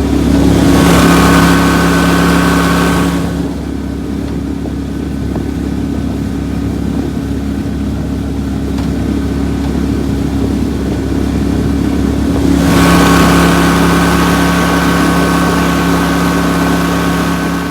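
35-horsepower surface-drive boat motor running steadily with the boat under way. A louder rushing hiss rides over the engine for the first three seconds and again past the halfway point.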